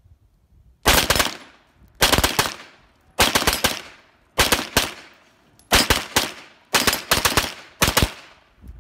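Binary-trigger MP5-style clone firing seven quick pairs of gunshots about a second apart. Each pair is one pull and one release of the binary trigger, which fires on both.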